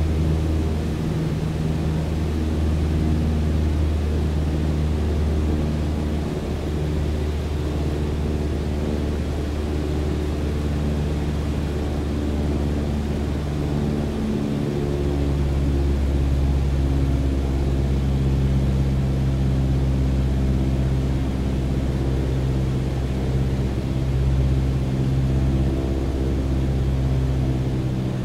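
Steady engine drone, a low hum with overtones, whose pitch shifts slightly about six seconds and again about fourteen seconds in.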